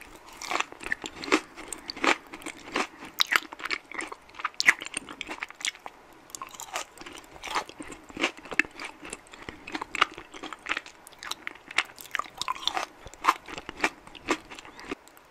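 Close-miked chewing of chocolate: an irregular run of crunches and wet mouth clicks, several a second.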